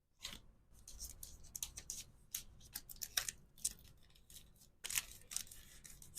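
Resin hair clips and their packaging being handled, with irregular crisp clicks and crinkles.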